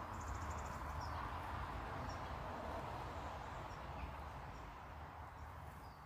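Small garden birds giving brief high chirps, with a short rapid trill just after the start, over a steady background rush.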